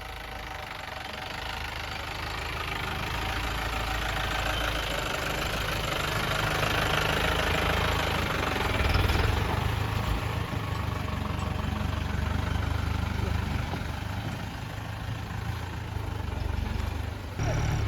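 A motor vehicle's engine running on a rough dirt track, getting louder over the first half and loudest about nine seconds in.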